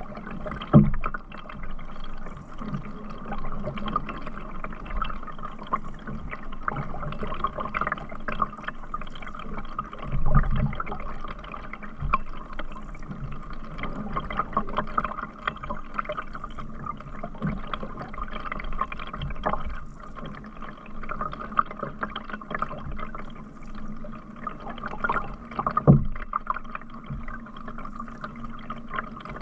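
Canoe paddling on a river: paddle strokes splashing and water trickling and dripping, with a few dull thumps, about a second in, near the middle and near the end.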